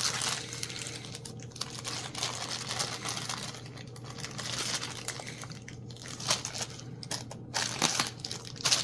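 Plastic packaging crinkling and rustling in the hands as a newly delivered phone charging-port part and its repair tools are handled, with a few louder crackles near the end.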